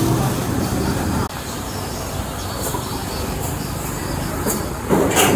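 Steady street noise with traffic and bustle around a food stall. It steps down a little just over a second in, and a short loud noise comes about five seconds in.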